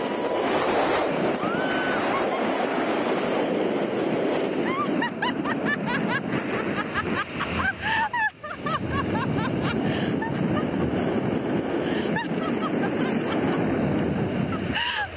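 Wind rushing over the camera microphone as a rider swings fast on a canyon swing rope, a loud steady rush that dips briefly about eight seconds in.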